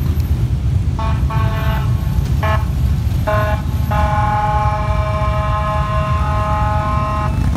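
A vehicle horn honks about four short times, then holds one long steady blast of about three and a half seconds, over the low rumble of many motorcycle engines running.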